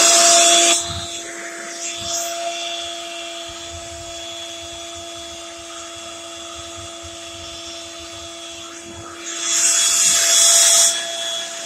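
Air blower running with a steady whine, blowing air into a homemade water-heater-tank wood stove to fan a slow-burning fire. The rush of air is louder for the first second and again for a stretch about ten seconds in.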